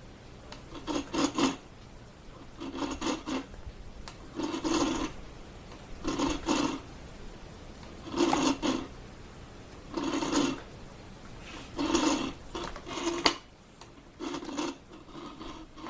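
Double-sided hand file rasping back and forth over a small truss-rod washer to flatten its face, in slow, regular strokes about every two seconds. One sharp click about thirteen seconds in.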